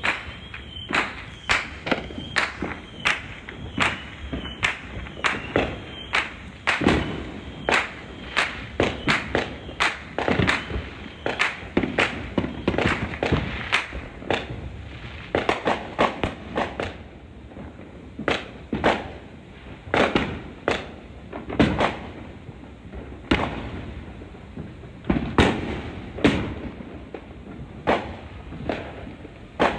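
Fireworks going off in quick succession, a steady barrage of dull bangs and sharper cracks at about two a second, some loud and some farther off.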